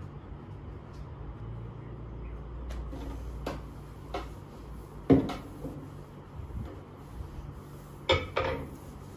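A wooden tabletop being wiped down by hand with a cloth, with scattered knocks and taps against the wood. The loudest knock comes about five seconds in and two more close together near the end, over a low steady hum.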